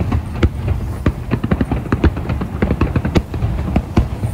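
Fireworks finale: a rapid barrage of aerial shell bursts, many sharp bangs and crackles in quick succession over a continuous low rumble.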